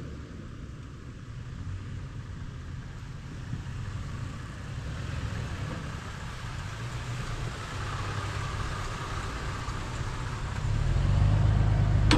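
Engine of a 5th-gen Toyota 4Runner running with a steady low rumble, getting louder near the end.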